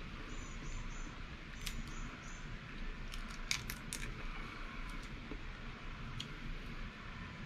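Steamed blue crab shells cracking and snapping as they are picked apart by hand, a handful of sharp cracks bunched together about halfway through.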